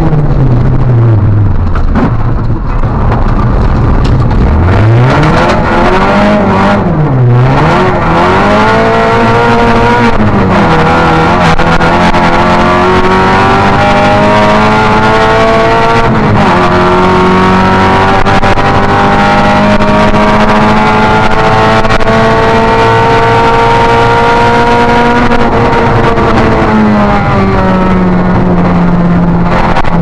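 Opel Astra rally car's engine at racing pace, heard from inside the cabin: revs fall under braking at the start, then climb with quick upshifts about seven and ten seconds in, followed by two long pulls in higher gears separated by another shift. Near the end the revs drop as the driver lifts off.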